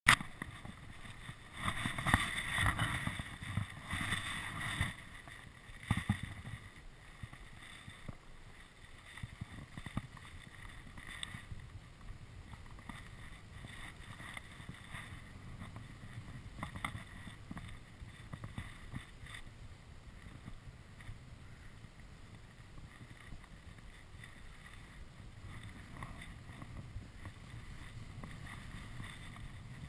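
Skis sliding through snow with a steady hiss and scraping, louder for the first few seconds, with a sharp knock about six seconds in. Wind buffets the microphone.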